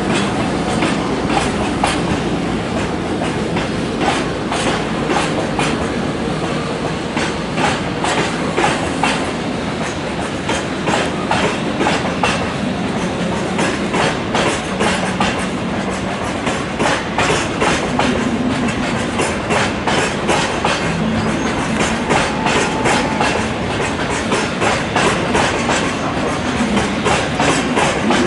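Freight train of Hoki 10000 hopper wagons rolling past, its wheels clacking rhythmically over rail joints.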